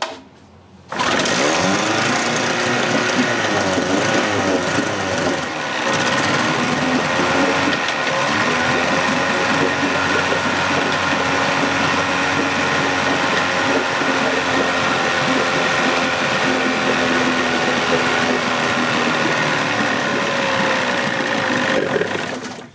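Johnson 25 hp two-stroke outboard engine catching about a second in and running, its revs rising and falling unevenly, then shut off near the end.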